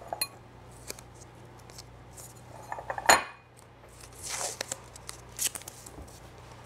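Blue painter's tape being pulled off the roll and torn into short pieces: several short rasps and crackles with small handling clicks, the sharpest about three seconds in and a longer rasping pull a little after.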